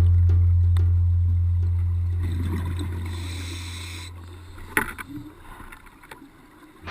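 A low, steady drone that fades out gradually over about four seconds, followed by a single sharp knock about five seconds in.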